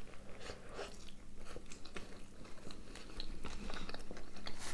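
Two people biting into and chewing McDonald's burgers, a Big Mac and a Big Tasty: chewing with many short, irregular mouth clicks and soft crunches.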